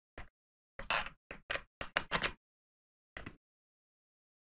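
Plastic and metal handling clicks and scrapes as a GoPro camera in its mounting frame is fitted with a thumb screw to a hat mount. There is one click near the start, a quick run of about six about a second in, and one more about three seconds in.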